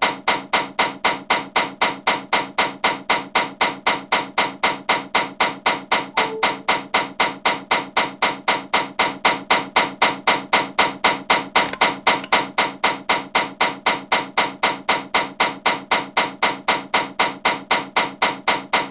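Very loud ceiling fan knocking in a steady, even rhythm, about three to four sharp clacks a second.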